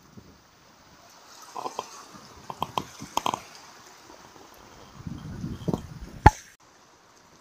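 Sea water lapping and sloshing among concrete breakwater blocks, with irregular small splashes and drips. One sharp knock comes a little after six seconds in, and the sound then drops away abruptly.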